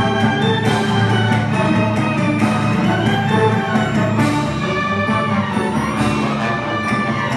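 A student string orchestra of violins, violas, cellos and double basses playing steadily, in held notes over a strong bass.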